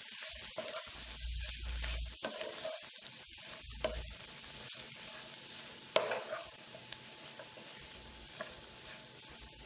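Wooden spatula stirring and scraping grated coconut, onion and greens around a nonstick pan, in irregular strokes with a sharper tap about six seconds in. A faint sizzle comes from the pan, still hot with the burner switched off.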